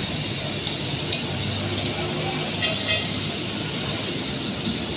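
Steady worksite hum and hiss with a few light metallic clinks: one about a second in, another just before two seconds, and a quick run of them a little before three seconds.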